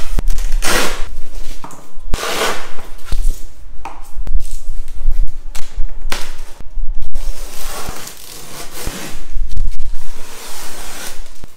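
A cardboard box being opened and its packing handled: a series of short scraping, rustling swishes with a few knocks.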